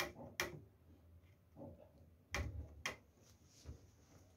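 Fingernails picking and scratching at a warranty sticker on a battery case: a handful of faint, irregular clicks and scrapes.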